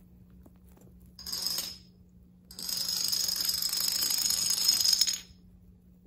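A line of blue toy dominoes toppling one after another onto a wooden floor, set off by a cat. There is a short clatter about a second in, then a continuous rapid clatter of about two and a half seconds that cuts off suddenly.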